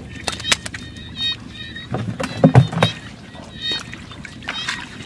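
Bare hands splashing and scooping in shallow muddy floodwater while grabbing fish, with a burst of heavier splashing about halfway through. Short, high repeated chirps sound over it.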